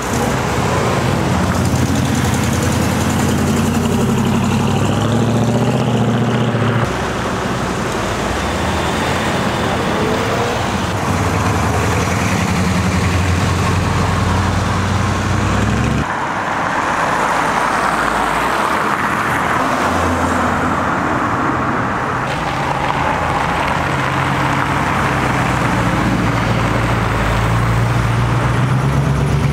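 Engines of classic American cars running as they drive off one after another, with a low engine note throughout. The sound changes abruptly about 7 and 16 seconds in as a different car takes over.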